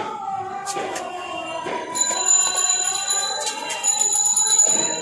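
Busy street noise with a wavering tone. From about two seconds in, steady high bell-like ringing joins it, along with a few sharp clinks.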